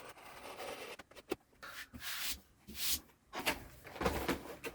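Hands handling and opening a cardboard trading-card collection box: a series of irregular rubbing, scraping and rustling noises.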